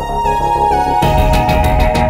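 Background music: held melody notes stepping down in pitch, with a fast regular beat and a fuller low part coming in about a second in.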